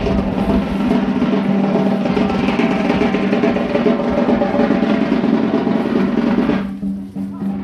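Drums played in fast rolls and beats over a steady low drone, loud and continuous, thinning briefly near the end.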